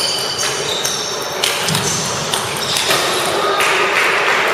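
Table tennis balls clicking off paddles and tables, several games at once, in a large reverberant gym hall.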